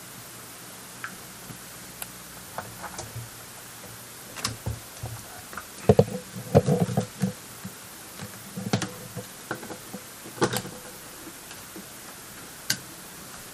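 Scattered clicks and knocks of hands handling a camera, its battery and power plug, busiest about six to seven seconds in, over a steady hiss.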